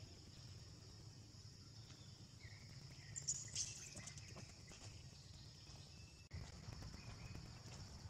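Quiet outdoor ambience: a steady high-pitched hiss and a low rumble, with a few short high chirps and squeaks a little over three seconds in.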